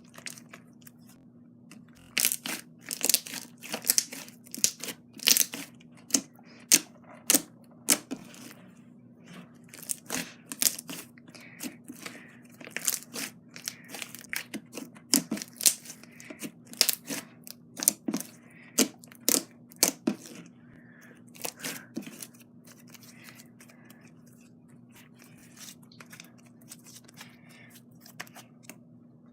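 Glossy slime being kneaded and stretched by hand as soft clay is worked in, giving irregular sticky pops and tearing clicks, thick through the middle and sparser near the end.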